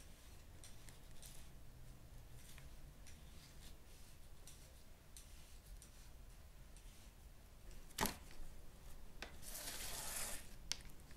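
Faint sounds of a knife cutting a raw beef joint on a plastic tray: scattered soft clicks, then a sharp knock about eight seconds in and a second or so of wet rustling as the meat is handled.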